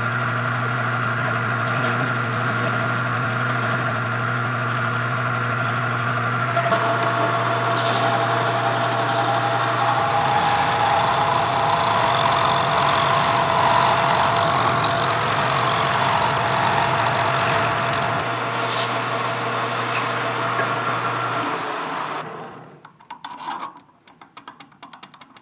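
A metal lathe runs with a steady hum while a hand file rasps against the spinning bronze hub. Partway through, the sound changes to a tool cutting into the end of the part. About 22 seconds in the lathe stops, and a few light clicks follow.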